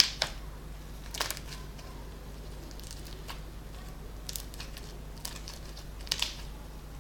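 Homemade slime being squeezed and worked by hand, giving scattered sharp pops and crackles; the loudest come right at the start and about six seconds in.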